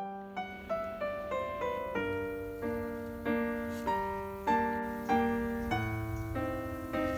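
Background piano music playing a melody of struck notes, about two a second.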